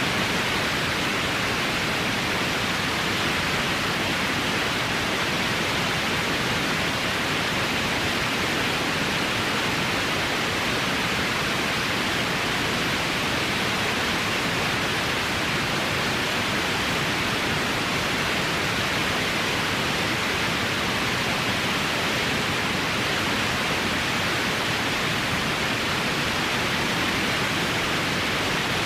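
Electronic white noise: a steady, even hiss that does not change in level or character.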